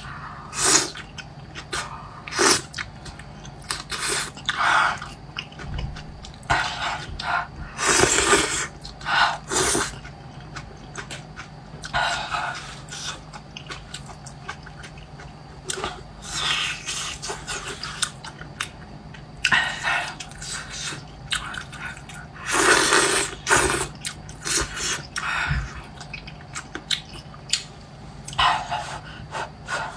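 Close-miked eating sounds: noodles slurped and chewed in irregular short wet bursts, several seconds apart.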